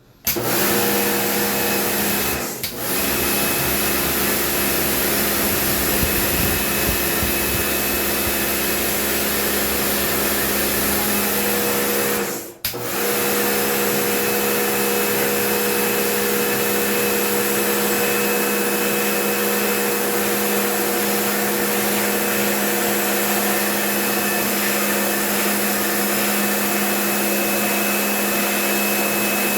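A motor-driven cleaning machine running steadily: a loud hum with several steady tones over a hiss. It breaks off twice for a moment, about two and a half seconds in and again near the middle, and the pitch of the hum shifts a little after the second break.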